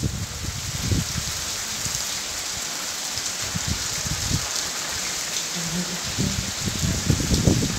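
Heavy rain falling, a steady even hiss of drops on roofs and ground.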